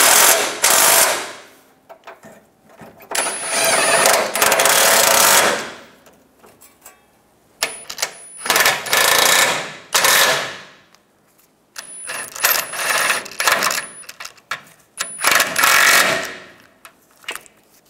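Cordless brushless impact wrench (Metabo HPT) hammering bolts tight: five separate runs of rapid impacting, each one to a few seconds long, with short pauses between them. It is running the rear bumper's mounting bolts down into the truck frame.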